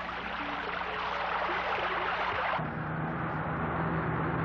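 Pumped groundwater gushing out of a wellpoint dewatering pipe in a loud, steady rush. About two and a half seconds in, the rush cuts off abruptly and a steady machine drone takes over.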